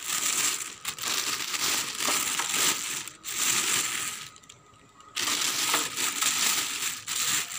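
Clear plastic wrapping bag crinkling and rustling as it is pulled off a plastic stacking food keeper, with a brief pause a little past halfway.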